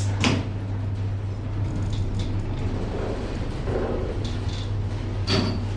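Steady low hum inside a passenger lift car, with a few faint ticks.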